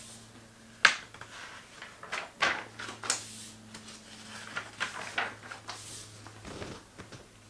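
Pages of a paperback picture book being turned and handled: a sharp paper flap about a second in, then several softer rustles and flicks. A faint steady low hum runs underneath.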